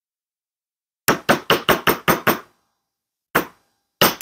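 Mallet striking a copper wire bangle on a steel bench block to flatten it: a quick run of about seven sharp taps starting about a second in, a single tap a little past three seconds, then another quick run near the end.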